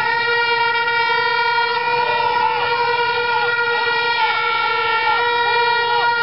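Plastic stadium horns blown by a crowd: one steady droning note held throughout, with shorter horn notes swooping up and down over it.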